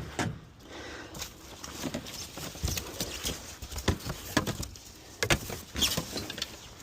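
A string of irregular knocks and clunks, some close together and some a second or more apart, with no steady running sound behind them.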